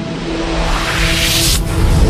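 Electronic outro music: sustained synth notes under a rising whoosh that swells and cuts off suddenly about one and a half seconds in.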